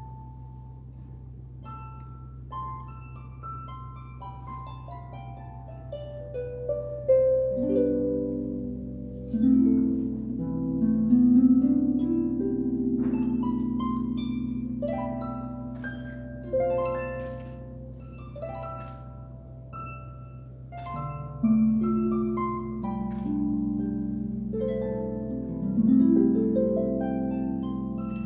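Solo concert pedal harp being played: softly plucked single notes and a descending run at first, then fuller, louder passages from about seven seconds in, with low strings ringing beneath the melody. It eases off around twenty seconds in, then swells again.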